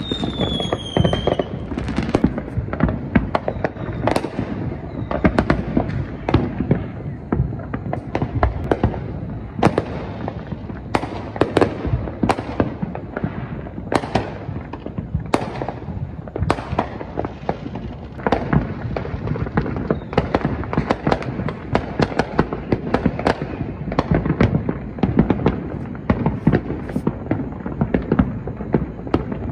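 Many fireworks going off at once: a dense, unbroken barrage of bangs and crackles. A falling whistle from a whistling firework comes in the first second or so.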